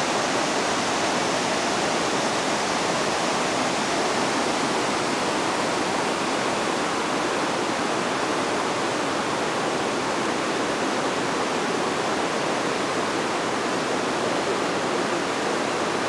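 Water rushing steadily over a river weir.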